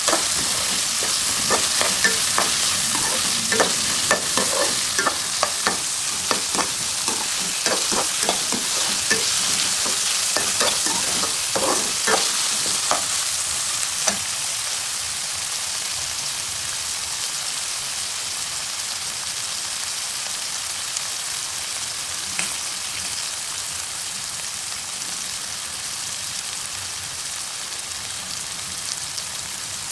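Carrot and corn stir-frying in hot oil in a pan, sizzling steadily. Over roughly the first half a utensil knocks and scrapes against the pan many times as the vegetables are stirred. After that the stirring stops and the sizzle carries on alone, slowly getting a little quieter.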